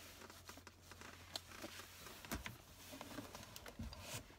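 Faint eating sounds in a car: scattered small clicks and mouth noises of chewing, with a couple of soft low thumps of handling.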